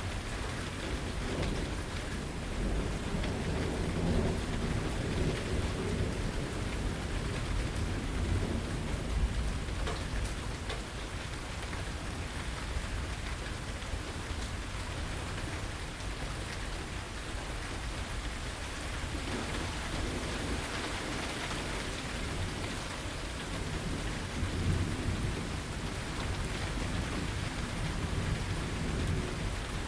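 Steady heavy rain with long, rolling rumbles of thunder, one through the first several seconds and another building again in the second half.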